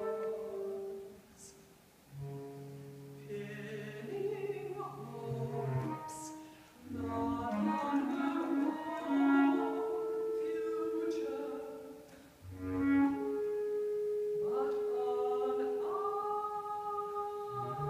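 A mezzo-soprano singing a contemporary classical art song with bass clarinet accompaniment. The bass clarinet plays sustained low notes under the voice's long held notes.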